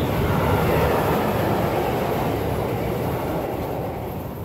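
Freight train of covered box wagons rolling past close by: the steady noise of wheels running on the rails, growing a little quieter toward the end.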